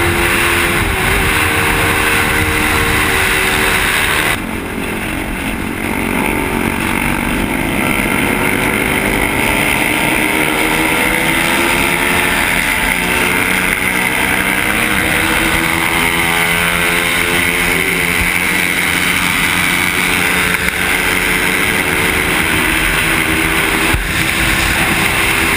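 Motorcycle engine running at road speed, its pitch rising and falling several times as the rider works the throttle, under heavy wind noise on the microphone.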